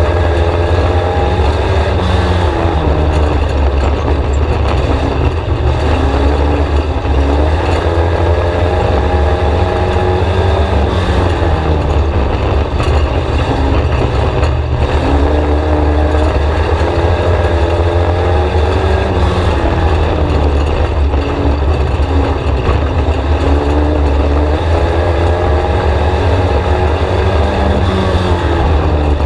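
Race-car four-cylinder engine in a VW Scirocco, heard from inside the cabin at racing speed. The engine note climbs on each straight and drops back going into each turn, about every seven seconds, over a heavy steady low rumble.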